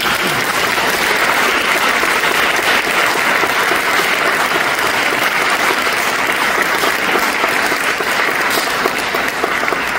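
Audience applauding: dense, steady clapping that starts suddenly.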